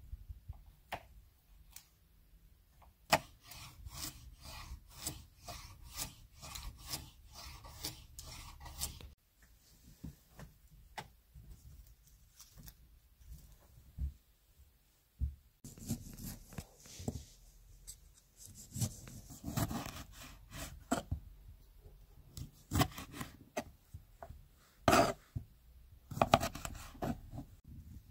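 Kitchen knife chopping and slicing vegetables on a wooden cutting board: a quick, even run of knocks for several seconds, then slower rasping cuts and scrapes with a few sharp knocks, the loudest a little before the end.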